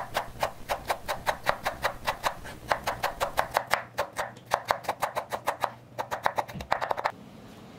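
Chef's knife rapidly mincing potato on a wooden cutting board, the blade knocking on the board about four to five times a second in runs with short breaks. The chopping stops about seven seconds in.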